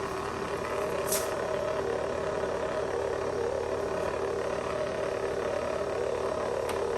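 A steady mechanical hum throughout, with a sharp click about a second in and a fainter one near the end.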